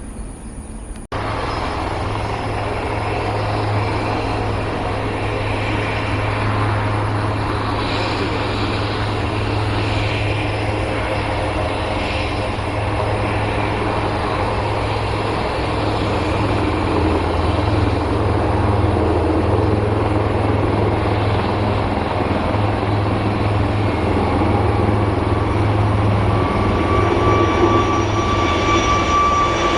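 Aircraft engines running steadily with a deep low hum; near the end a steady whine comes in over it.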